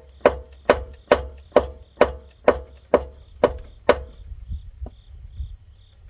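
Rhythmic thuds, about two a second, of a person bouncing their weight on a Takeuchi TL130 track loader's rubber track, forcing grease out of the loosened track adjuster so the track slackens; the thuds stop about four seconds in, leaving a few faint knocks.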